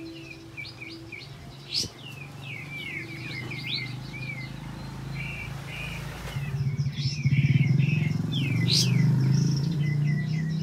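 A kapas tembak songbird singing a fast string of chirps and sweeping whistles, with short trilled phrases. A low hum underneath gets louder about two-thirds of the way through.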